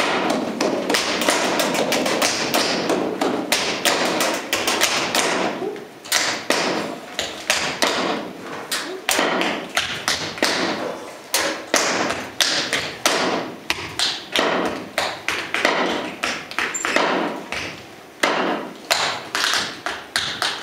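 Tap shoes striking a stage floor in unaccompanied rhythmic tap dancing, mixed with heavier thuds. The taps come thick and fast for about the first six seconds, then break into sharper, separated strokes in short phrases with brief pauses.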